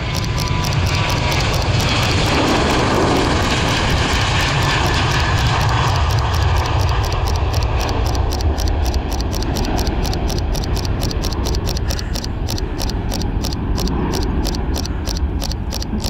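Jet aircraft engine noise from a plane moving on the runway close by: a loud, steady roar with a deep rumble that eases a little in the second half. Over it, a Fujifilm X-T3 camera's shutter fires in a rapid burst, about four to five clicks a second.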